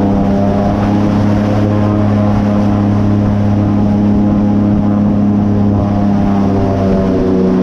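Airboat engine and large rear propeller running steadily under way, a loud even drone; the pitch dips slightly near the end.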